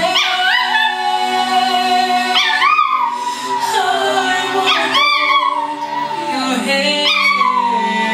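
Chihuahua howling along to a song, a run of drawn-out howls about every two seconds, each rising then falling in pitch, over the music.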